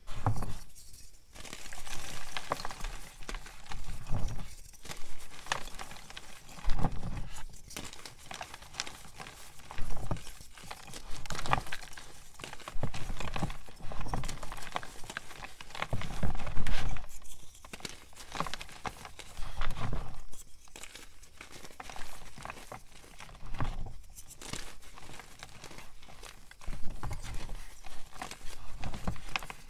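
Paw-shaped blocks of gym chalk being crushed by hand in a plastic tub: dense crunching and crumbling as the blocks break into chunks and powder, with a low thud every second or two.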